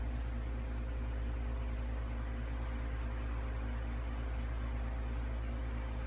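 A steady low hum with a faint hiss and no music or speech: room tone before the music starts.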